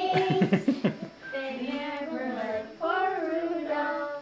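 Young children singing a song together in long held notes, with a short break about a second in.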